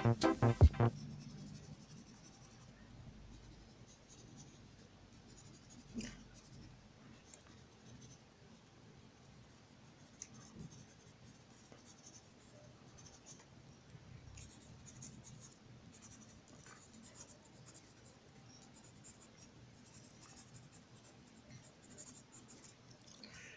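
Background music cuts off about a second in. After that a coloured pencil scratches faintly on paper as it shades, with a single knock about six seconds in.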